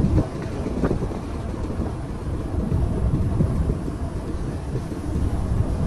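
Strong wind buffeting the microphone: an uneven low rumble that rises and falls in gusts.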